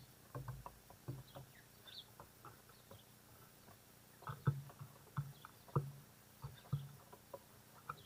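Magpie's bill tapping and knocking on the wooden railing as it pecks at fries and seeds: a string of irregular sharp knocks, louder and closer together in the second half. Faint high chirps of small birds are in the background.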